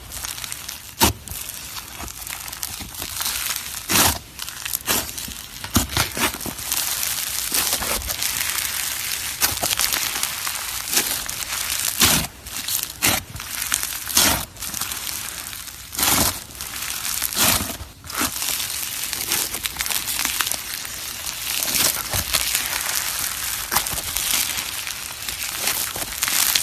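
Slushee slime being squished and pressed, crunching and crackling all the way through, with frequent sharp pops and clicks.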